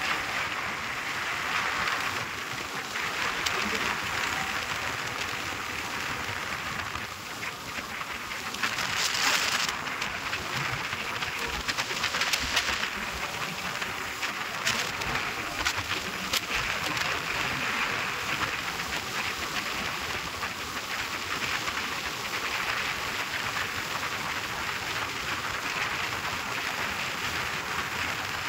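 Steady rushing wind and road noise on the microphone of a motorcycle ridden at speed during a drag run.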